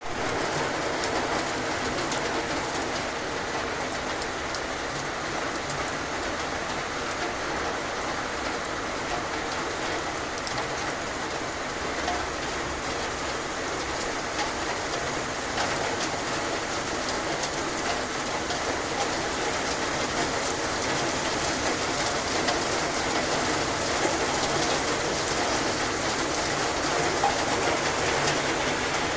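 Heavy rain falling steadily in a thunderstorm, a constant hiss of many drops hitting surfaces.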